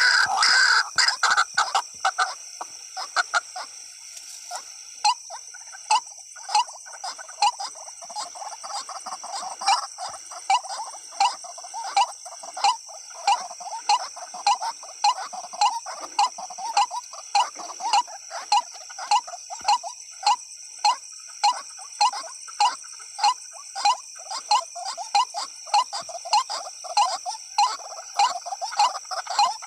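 White-breasted waterhen (ruak-ruak) calling over and over in a steady rhythm, about two short calls a second, over a steady high-pitched drone.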